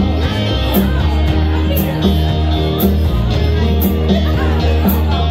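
Live rock band playing electric guitars and a drum kit, with a steady beat and a sharp accent about once a second.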